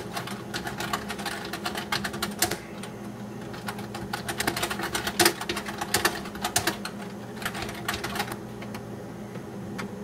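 Irregular bursts of rapid clicking from a computer keyboard and mouse, typing and clicking in quick runs that thin out and stop near the end, over a steady low hum.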